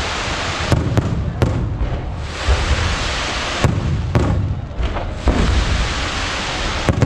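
Aerial fireworks shells bursting in quick succession: sharp bangs about every half second to second, over continuous crackling and a low rumble.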